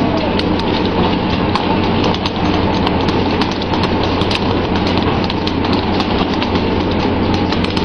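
Pole-caught tuna thudding onto the deck and beating their tails against it in quick, irregular knocks, over a steady hiss of spraying water and a low engine hum.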